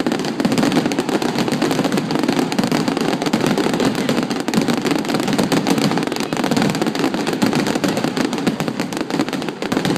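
Fireworks display: a dense, continuous barrage of rapid bangs and crackling with no break.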